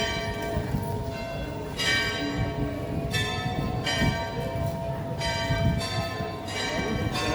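Church bells ringing, struck over and over at roughly one strike a second, each strike ringing on into the next.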